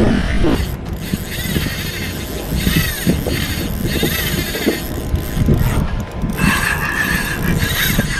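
Spinning reel clicking in an uneven, ratchet-like run. From about six seconds in, a wavering higher whine joins it.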